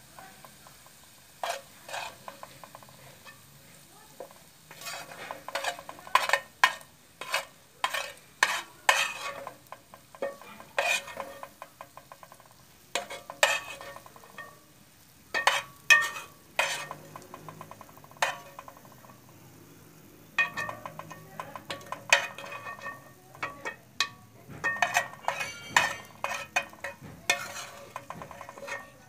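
Metal spoon scraping fried onions around an oiled frying pan and clinking against it, in short irregular bursts, over a faint sizzle of hot oil.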